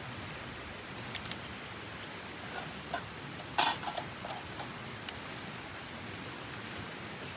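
Metal cooking pot on a small wood-fired box stove clanking once, sharply, about halfway through as it is handled while oil is poured in, followed by a few lighter taps. Steady rushing of nearby river water throughout, with a few faint clicks.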